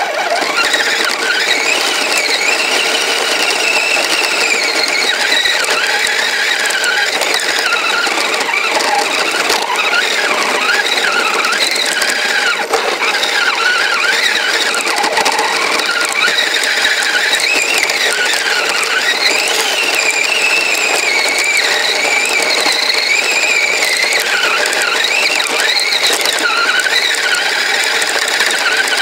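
Kyosho Blizzard RC snowcat's electric motor and gear-and-chain drive whining as it is driven, the pitch of the whine rising and falling with the throttle over steady drivetrain and track noise.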